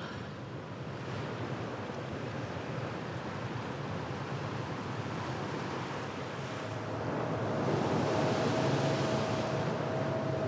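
Surf breaking and washing on rock breakwaters, with wind on the microphone and a low steady hum underneath. The wash grows louder in the second half.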